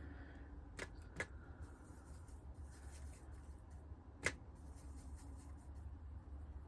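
Faint scratchy rustling of a brush working a watercolour wash over paper, with three small sharp clicks, the loudest about four seconds in, over a steady low hum.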